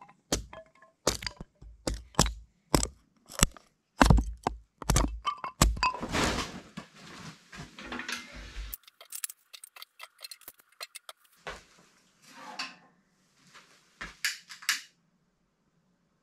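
A hatchet splitting kindling on a wooden stump: a string of sharp chops, each with a dull thud. About halfway through, the chopping gives way to scattered metallic clinks as the door of a steel woodstove is opened and handled.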